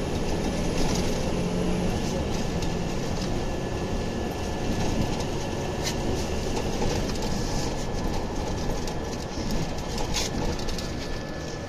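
Interior ride noise of a Scania OmniLink city bus under way: a steady rumble of engine and road, with a few sharp rattles or knocks from the body and fittings.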